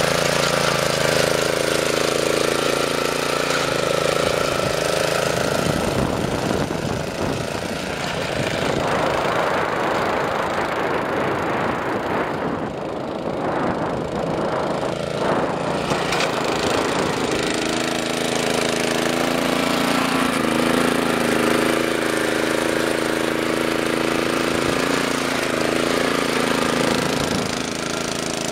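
Small Ground Hog walk-behind chain trencher at work: its small petrol engine runs steadily while the digging chain cuts a narrow trench through turf and soil. In the middle stretch the engine's even note gives way to a rougher, noisier sound before returning.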